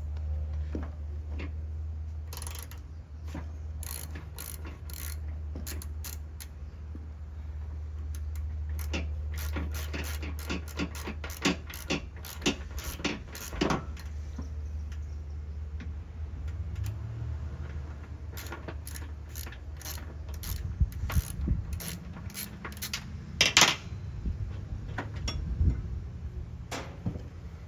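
Ratchet wrench clicking in runs as the bolts holding a mower-deck spindle are turned out, with a few louder metallic clanks.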